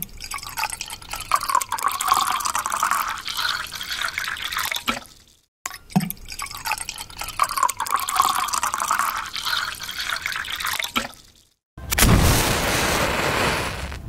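Water poured into a container twice, each pour lasting about five seconds. Near the end a match is struck and flares with a short burst of hiss.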